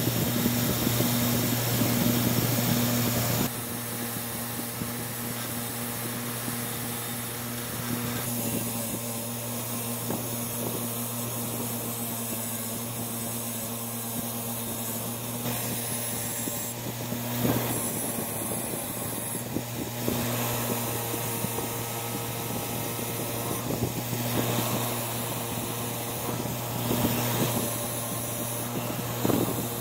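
Craftsman bench grinder running with a wire wheel, its motor humming steadily while rusty steel vise parts, the threaded screw and then the cast-iron body, are pressed against the wheel and scrubbed clean of rust. Louder for the first few seconds.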